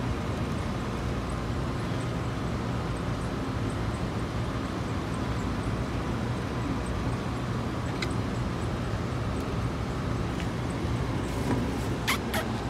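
Steady outdoor street background: a low, even rumble of distant traffic. A few sharp clicks come near the end.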